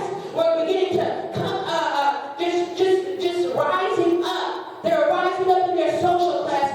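Church congregation singing together in held notes, with a steady beat of sharp hits under the singing.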